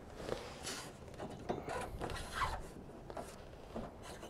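Faint light knocks and rubbing of hands and a wrench at a bolted carrier mount, as the nut is backed off and a misaligned rubber gasket is shifted back into line.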